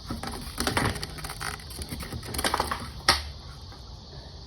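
Old fuel pump assembly being wrenched by hand out of a pickup's fuel tank opening: a run of scraping and clattering knocks, ending in one sharp knock about three seconds in.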